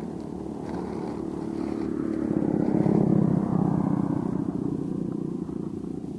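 A motorcycle engine passing by: it grows louder to a peak about halfway through, then fades as it moves away, its pitch dropping slightly.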